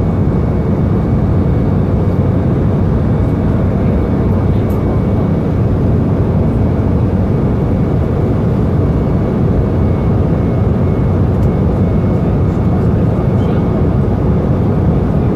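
Steady cabin noise of a jet airliner in flight, heard from a window seat beside the wing: an even, deep drone of the turbofan engines and airflow, with a faint thin whine above it.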